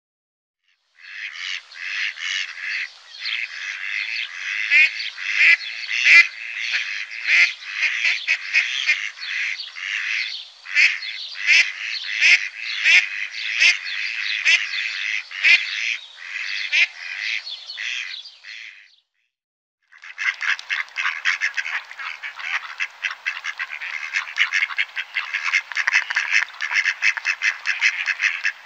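Mallards quacking in rapid runs of short calls. The calls stop for about a second two-thirds of the way through, then start again.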